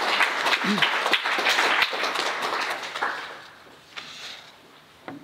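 Audience applauding, dying away about three seconds in, followed by a couple of faint knocks.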